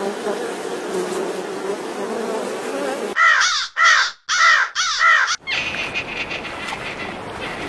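An animal calling four times in quick succession, each call a short arched note, after a few seconds of steady noise with a faint wavering hum.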